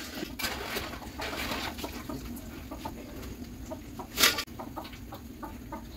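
Hens clucking, with a steel perforated ladle clinking and scraping against the frying pan and strainer bowl as fried banana chips are lifted out of the oil. A louder clatter comes about four seconds in.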